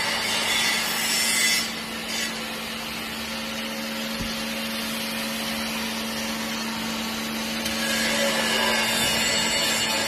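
Steady machine hum, plausibly the vertical hydraulic baler's electric pump motor running, over a rustling, rubbing noise of waste rags being handled. A single low knock comes about four seconds in.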